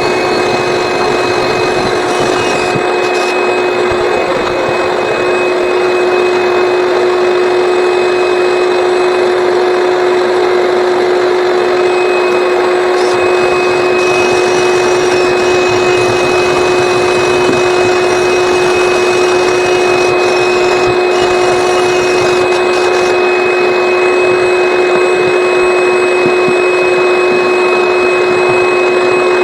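Vacuum running steadily with a constant whine while clearing lint out of a clogged dryer vent.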